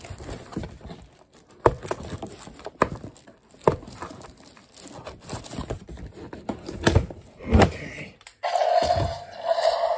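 Cardboard toy packaging being handled and pulled apart: irregular knocks, taps and rustles, then near the end a longer, steadier scraping rub.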